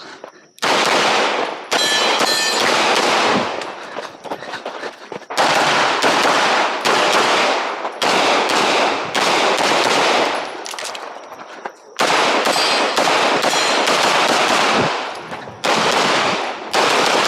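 CZ Shadow 2 pistol firing rapid strings of shots while a USPSA stage is being run, with brief pauses of about a second between strings.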